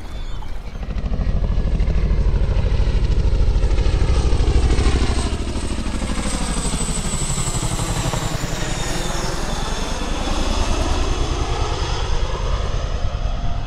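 Army CH-47 Chinook tandem-rotor helicopter flying low overhead: a rapid, heavy rotor beat that is loudest a few seconds in and sweeps in tone as it passes over, then eases off slightly.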